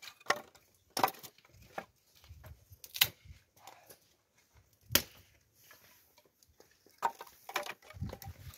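A few sharp knocks and clicks at irregular intervals, with quiet between; the loudest come about three seconds and five seconds in.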